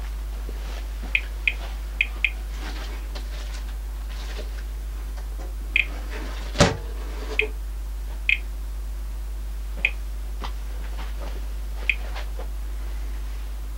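Thermo Scientific RadEye G-10 gamma survey meter giving short, high count chirps at random, irregular intervals, about nine in all, with a pair close together early on. These are single detected counts from a low background gamma rate. One loud sharp click sounds about halfway through.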